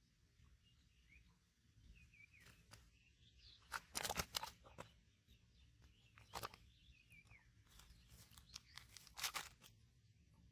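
Faint bird chirps with three short bursts of crackling rustle, the loudest about four seconds in, others about six and a half and nine seconds in.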